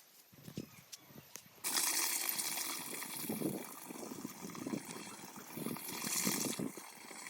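Water rushing out, starting suddenly about two seconds in as a steady hiss, with uneven lower splashes under it.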